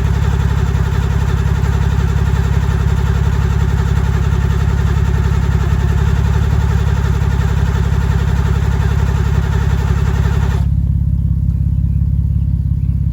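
Car engine running steadily. A higher, wavering mechanical whir sits over the engine and cuts off abruptly about ten and a half seconds in, leaving only the low engine note.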